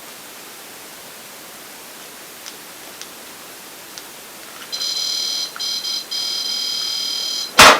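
An electronic ghost-hunting alarm starts about five seconds in: a high, steady beeping tone that cuts out briefly a few times. Near the end there is a single loud, sharp knock.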